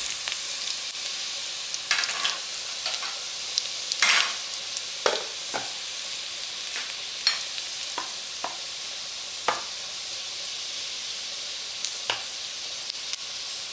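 Minced garlic sizzling in hot oil in a wok as it fries towards brown, a steady high hiss. About ten scattered sharp clicks and scrapes of a spatula stirring against the pan.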